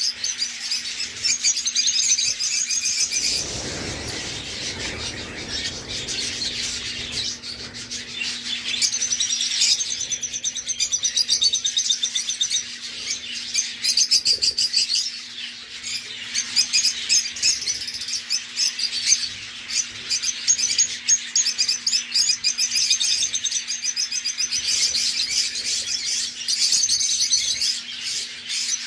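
Many small cage birds chirping and twittering in a rapid, continuous chatter, over a faint steady hum. A brief low rumble comes about three seconds in.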